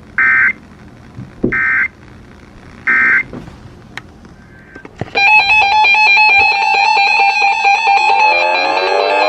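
Three short bursts of EAS (SAME) data tones, the end-of-message signal that closes a NOAA Weather Radio warning, about a second and a half apart. Music with rapid plucked notes starts about five seconds in.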